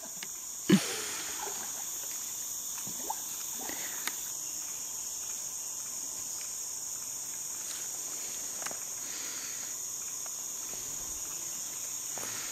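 Steady high-pitched drone of rainforest insects, with a few short knocks, the loudest about a second in.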